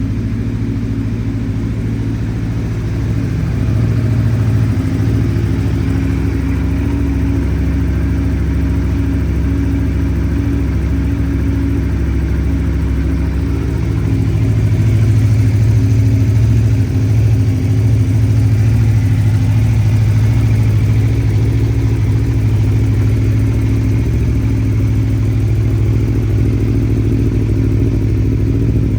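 Aprilia Tuono V4 1100 Factory's V4 engine running steadily through a carbon Akrapovic exhaust with titanium link pipe. It gets louder about four seconds in and again about halfway through, then holds steady.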